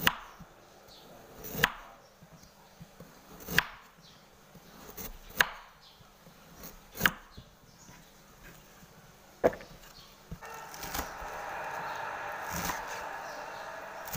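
Kitchen knife slicing a carrot into rounds on a wooden cutting board: sharp single knocks of the blade hitting the board, about six of them, one every second and a half to two seconds. A steady hiss comes in for the last few seconds.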